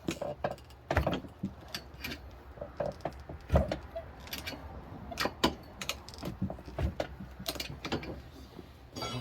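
Irregular metal clanks, knocks and scrapes of a tire iron prying at a stuck tire bead on a manual tire changer.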